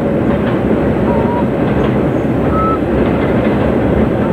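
Freight cars rolling across a steel truss railroad bridge, a steady rumble with faint clicks of wheels over the rails. A few short, high squeaks come through at intervals.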